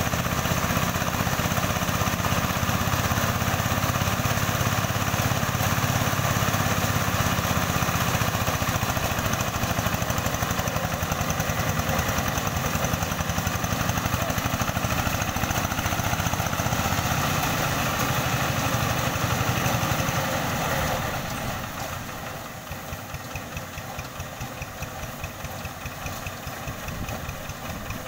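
The single-cylinder diesel engine of a Quick G2000 hand tractor runs steadily and loudly while it drives a rice-reaper attachment. About 21 seconds in, it eases off to a quieter, evenly pulsing chug.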